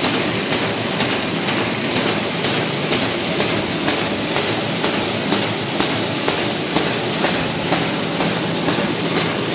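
Fully automatic square-bottom paper bag making machine running, its rollers and folding mechanism clattering steadily with a regular knock about twice a second.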